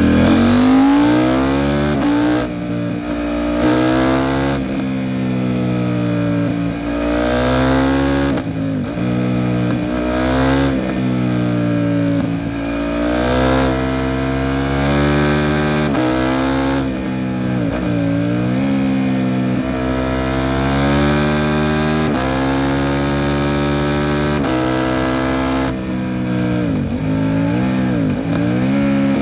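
KTM 790 Duke's parallel-twin engine through an Arrow Pro Race titanium exhaust, ridden hard: the exhaust note climbs in pitch under throttle and drops sharply at each gear change or roll-off, over and over.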